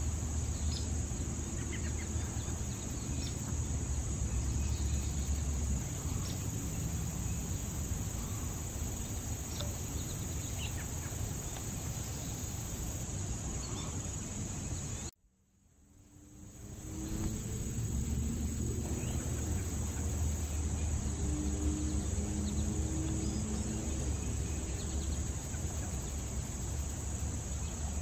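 Late-summer insect chorus of crickets, a steady high-pitched trill, over a low rumble. The sound cuts out suddenly about halfway through and fades back in over a second or two.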